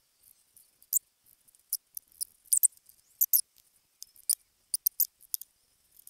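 Light, scattered clicks and ticks, about a dozen, as a small metal carburetor is handled and turned in the hands.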